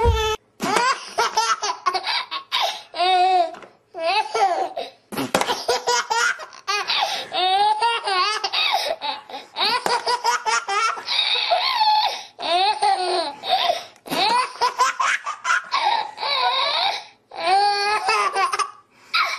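A baby laughing in long bouts of high, wavering laughter, breaking off briefly between them.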